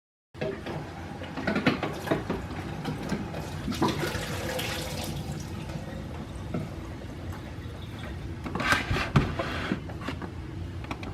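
Juice being poured and sloshing, with a few brief knocks of the container.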